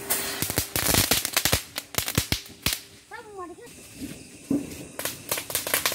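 Firework bursting into crackling sparks: a rapid string of sharp cracks over a hiss, then a person's voice calling out briefly about three seconds in, and more scattered cracks near the end.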